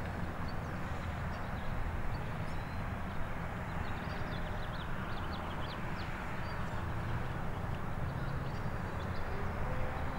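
Steady low outdoor background rumble, with faint, short bird chirps scattered through it.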